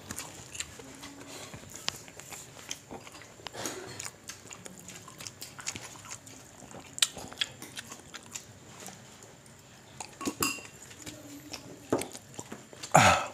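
Close-up eating sounds: scattered small clicks and smacks of chewing, with a metal spoon clinking and scraping on the food. A short loud burp comes near the end.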